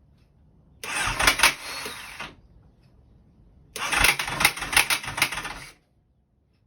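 Starter on a 2008 Honda CBR1000RR's inline-four pressed twice, each burst lasting about one and a half to two seconds: a harsh, rapid clatter as the engine turns over without catching. It sounds awful, not like an engine firing up, a sign of the bike's no-start fault.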